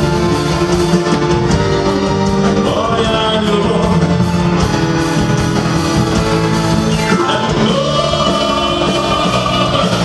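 Live rock band with a string orchestra playing a song, a man and a woman singing over it, the voices sliding in long notes from about the middle on.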